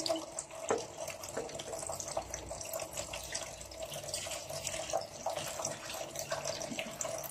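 Milk pouring steadily from a mug into a plastic blender jar holding mango pieces, with small splashes and drips.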